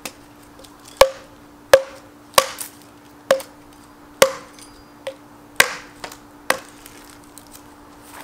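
Estwing hatchet chopping a small branch against a log: about nine sharp strikes at an uneven pace over six seconds, some with a brief ring after the blow.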